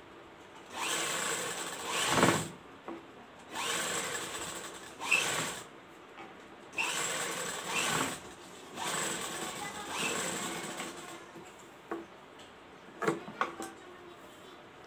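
Sewing machine stitching piping onto a cotton dress in four short runs of one to two seconds each, with pauses between them as the fabric is repositioned, followed by a few clicks near the end.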